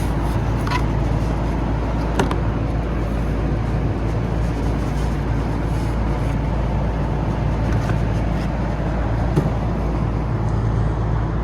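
Steady hum and rush of running machinery, with a light click about two seconds in and another near the end.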